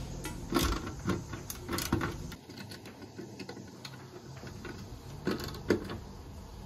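Hand ratchet clicking in short, uneven runs as a screw is tightened on a marine fuse block.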